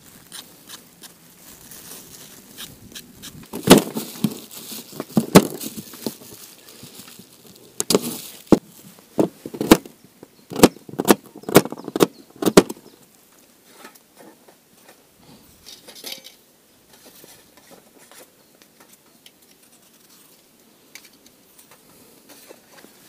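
A kitchen knife preparing vegetables for fish soup: light scraping as a carrot is peeled, then a run of sharp knocks of the blade chopping the carrot on a cutting board for about ten seconds, then faint scraping as a potato is peeled.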